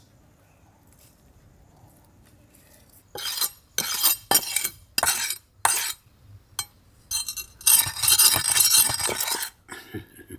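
A large steel chopping knife rasping against a wooden log in a run of short scraping strokes, then one longer continuous scrape near the end, as the blade is worked before cutting up the fish.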